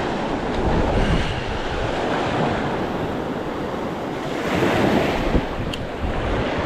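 Surf breaking and washing up the beach, with wind buffeting the microphone; the wash swells about two-thirds of the way through.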